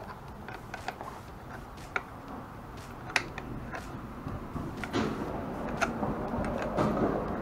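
Irregular light metallic clicks and taps of a 10 mm wrench being worked on a motorcycle battery terminal bolt, with handling rustle that grows louder about five seconds in.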